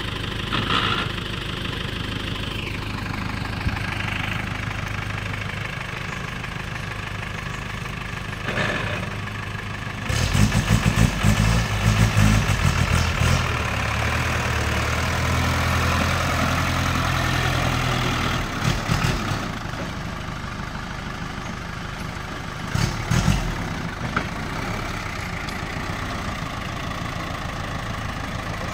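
Isuzu 4BB1 four-cylinder diesel in an old 4x4 flatbed truck running at idle, then pulling louder and deeper from about ten seconds in as the truck drives off, with some clattering, before settling back to a steady run.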